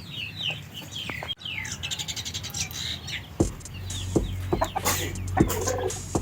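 Chickens clucking, with many short, high calls that slide down in pitch. About halfway through, a steady low hum and several sharp knocks join in.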